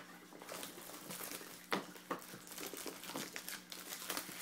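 Plastic wrapping crinkling as it is handled and pulled at, in a run of short crackles with one sharper snap near the middle, typical of unwrapping a sealed box of trading cards.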